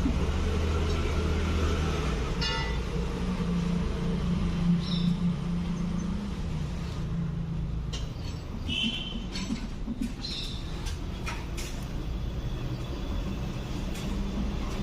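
Small scrapes and clicks of a screwdriver tip cleaning the carbon spots off the contacts of a car seat switch, mostly in the second half, over a steady low mechanical hum.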